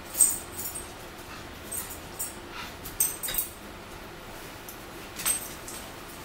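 Pet dog whimpering in short, high whines, several times over a few seconds.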